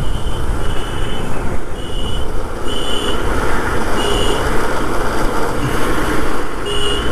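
Yamaha FZ motorcycle riding at road speed, its engine, tyre and wind noise steady on the rider's camera microphone. A short high electronic beep repeats about once a second over it.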